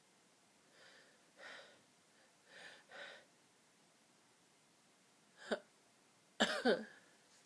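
A person's sneeze fit. Soft breaths build up over the first few seconds, then a sharp catch comes about five and a half seconds in. A loud sneeze follows a second later, with a falling voiced tail.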